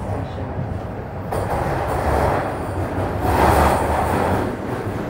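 Toronto Rocket subway train heard from inside the car as it pulls out of a station and gathers speed: a steady rumble of wheels on rail that swells and grows brighter from about a second in, as the train enters the tunnel.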